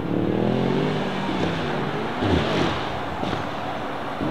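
Engines of slowly approaching cars, a Ram pickup in front and a Mercedes-AMG E63 S behind it. The engine note falls in pitch over the first second or so, then swings up and back down about two seconds in.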